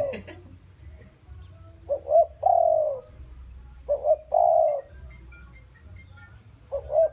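Caged decoy spotted dove cooing: three calls about two and a half seconds apart, each two short notes followed by a longer, falling coo.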